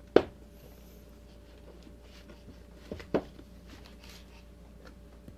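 A few short, sharp sounds over a low steady hum: one loud one just after the start, then two close together about three seconds in.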